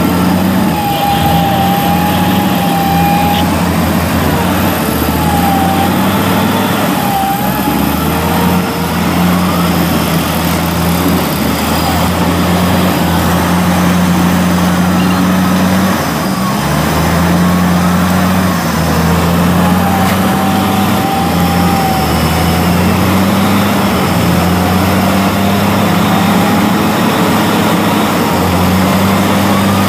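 Off-road 4x4 engine running steadily under load, its pitch drifting up and down a little. A higher, wavering whine comes and goes above it several times.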